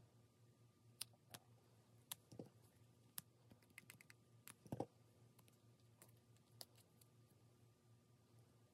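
Faint, scattered small clicks and light taps from wire and small hand tools being handled on a work surface, bunched together about halfway through, over a faint steady hum.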